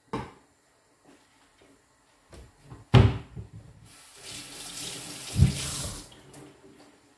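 Kitchen tap running into a sink for about two seconds, a steady hiss of water that stops suddenly. A loud knock comes about a second before the water starts, and another knock while it runs.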